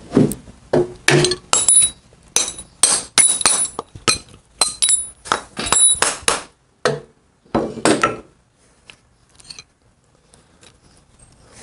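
Sharp metallic clinks and taps, about two a second, some with a short ring, as a steel bearing puller tool is worked with a wrench and a rawhide mallet. After about six and a half seconds they thin out to a few softer knocks.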